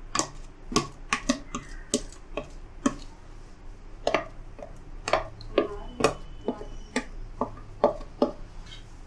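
Spoon tapping and scraping leftover green masala paste out of a plastic container into a metal pot of tomato puree: a string of irregular sharp clicks and taps.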